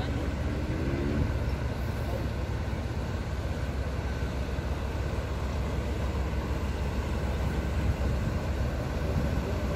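Steady low rumble of boat diesel engines with the wash of water as an inland cargo barge passes close by.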